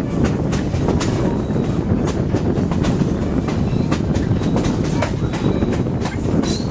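Ontario Northland mixed train rolling along the track: a steady loud rumble with frequent sharp clicks of wheels over the rails.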